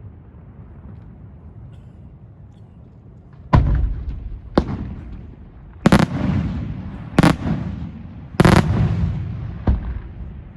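Fireworks display: a low rumble, then six loud shell bursts, each trailing off in a rolling echo.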